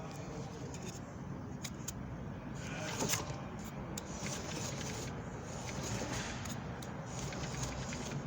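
Hand-cranked generator motor driving the hybrid gearbox's electric motor, which shakes. A steady low whirring with scattered clicks, and a louder knock about three seconds in.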